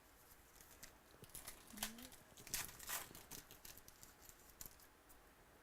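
Trading cards and their pack wrapper being handled: faint crinkling and rustling with scattered light clicks, busiest in the middle.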